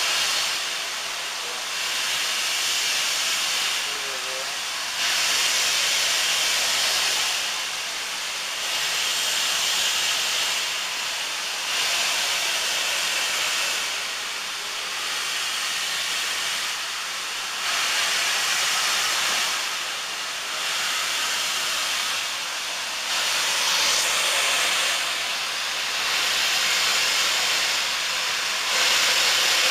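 Steam locomotive hissing loudly as steam jets out low beside the track while the train creeps along, the hiss swelling and fading about every two and a half seconds.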